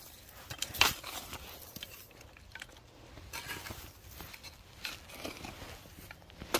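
Coleman folding shovel digging into soft, loose dirt: a few scattered scrapes and soft strikes, the sharpest about a second in.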